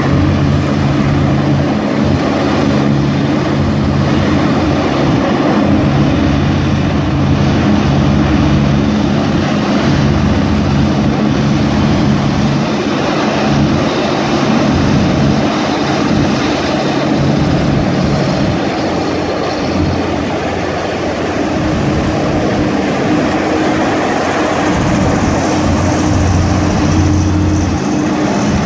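Passenger hovercraft's engines and twin ducted propellers running as the craft manoeuvres on the pad, a loud steady drone with several low hum tones. A higher rushing noise grows near the end as it moves off.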